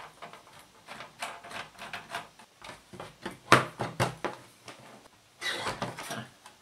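Scattered clicks and knocks from hands handling and opening the plastic case of a 1963 Geloso G257 reel-to-reel tape recorder, with the clear lid coming off. The two sharpest knocks fall about three and a half and four seconds in, followed by a short rustle.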